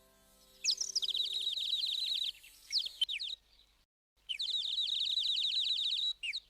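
A songbird singing two long, fast, high-pitched trills, with a few short whistled notes between them.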